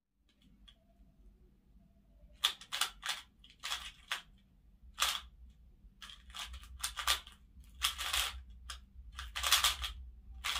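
A 3x3 Rubik's cube being turned quickly by hand: an irregular run of short plastic clicks and clacks as the layers snap round, starting about two seconds in.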